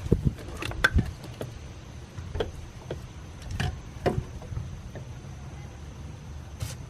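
Scattered sharp clicks and knocks of hands and tools working at a car's tight fuel filter hoses, loudest in the first second and again about four seconds in, over a steady low rumble.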